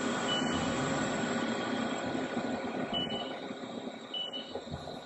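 Haas VF-2SS CNC vertical mill machining razor base plates: a steady rush of spindle, cutting and coolant, with three brief high-pitched squeals as the end mill works the metal. The noise eases off toward the end.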